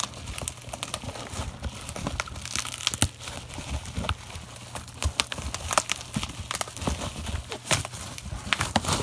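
Packaging being handled and opened, with irregular crinkling and rustling and scattered clicks.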